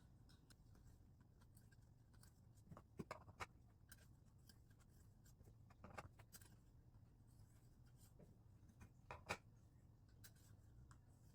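Faint, scattered scrapes and clicks of a Lansky 1000-grit ceramic hone stroking a knife edge held in a guided clamp, over near silence; the sharpest click comes about nine seconds in.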